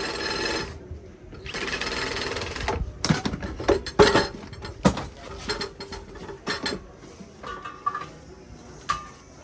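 Cordless drill-driver running in two short bursts on the screws of a steel two-burner gas stove, followed by a series of sharp metal knocks and clanks as the stove's steel top panel is lifted, turned and set down, the loudest one about four seconds in.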